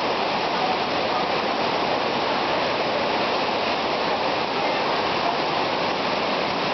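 Fast-flowing floodwater rushing through a street in a steady, loud torrent.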